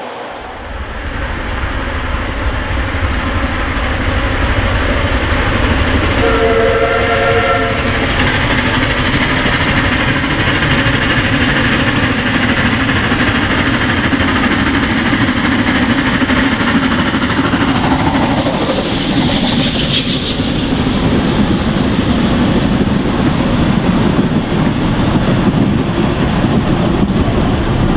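Narrow-gauge steam locomotive hauling a passenger train, growing louder as it approaches and then passing close by with its coaches. A short steam whistle sounds about a quarter of the way in.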